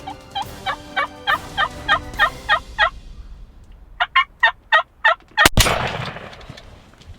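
Wild turkey calls in two evenly spaced series, about three notes a second, then a single loud shotgun blast about five and a half seconds in that rings out. Music fades out under the first calls.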